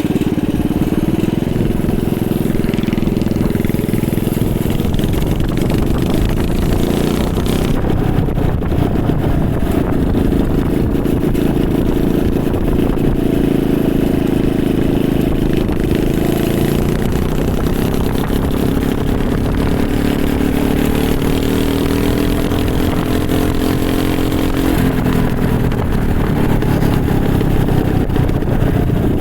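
Small pressure-washer engine powering a homemade mini bike, running under way, its pitch rising and falling as the throttle changes, with a sudden drop in pitch near the end.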